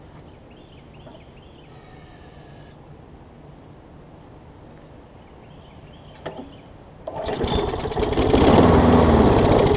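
Briggs & Stratton Quantum engine on a Craftsman push mower being pull-started about seven seconds in. It cranks over loudly for a few seconds and does not keep running, a sign of a fuel-delivery problem that the owner puts down to the wrong primer bulb. Faint bird chirps come before it.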